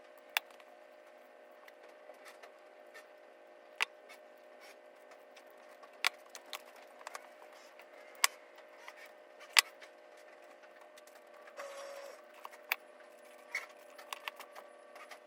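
Scattered sharp clicks and light taps, about half a dozen spread several seconds apart, with a short scraping rustle near the end, over a faint steady hum: small parts and tools being handled while fitting an electrical outlet.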